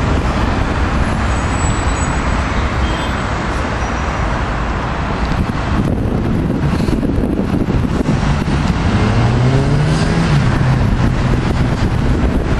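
Steady road traffic circling a large roundabout, with wind buffeting the microphone. About nine seconds in, a nearby vehicle's engine rises in pitch as it accelerates, then holds.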